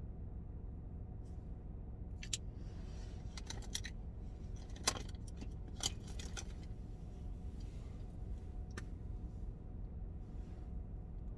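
Makeup compacts and tools being handled: a handful of sharp clicks and light rattles, the loudest about five seconds in, over a steady low hum.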